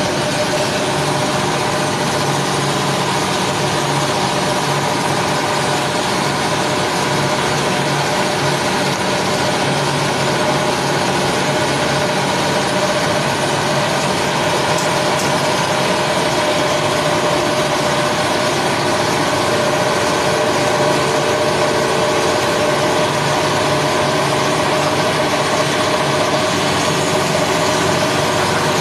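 An engine idling steadily with an even hum and no change in speed.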